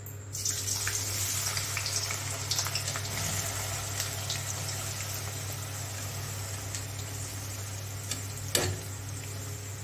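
Sliced onions dropped by the handful into hot oil in a steel kadai, sizzling steadily with small crackles; the sizzle starts a moment in. A single sharp knock comes near the end.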